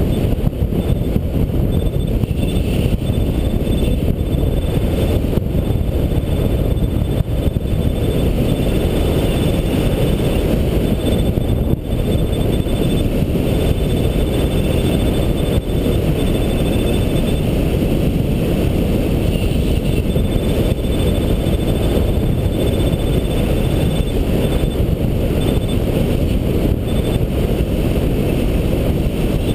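Airflow rushing over the microphone of a glider-mounted camera during a hang-glider flight, a loud steady rush. A faint high beeping runs on and off through it, pausing for a couple of seconds about two-thirds of the way in and fading out near the end.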